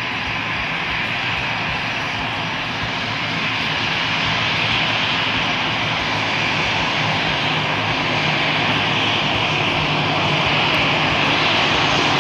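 Airbus A321 jet engines running steadily: a loud, even hiss with a low hum beneath, growing slightly louder about four seconds in.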